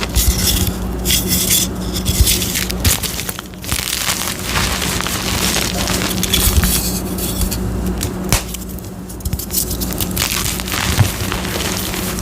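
Gym chalk being crushed, crunching and crumbling into powder with dense, continuous crackling and many small snaps.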